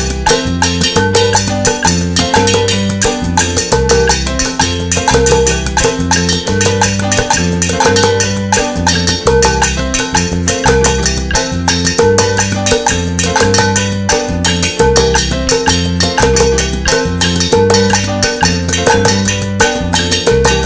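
Guaracha rhythm played on household objects: sticks striking a round metal pot or bowl and bare hands slapping another, in a fast, even pattern over changing low bass notes.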